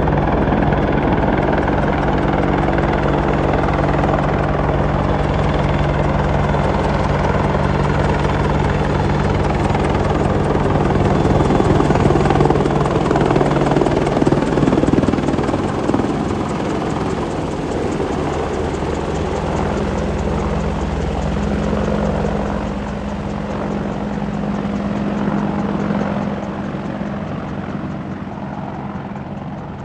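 Boeing AH-64 Apache attack helicopter at close range, its rotor and twin turboshaft engines running steadily as it hovers low. It grows loudest as it passes close about halfway through, then fades.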